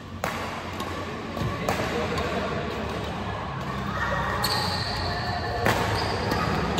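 Badminton rally: several sharp racket hits on the shuttlecock a second or more apart, with brief shoe squeaks on the court floor between them.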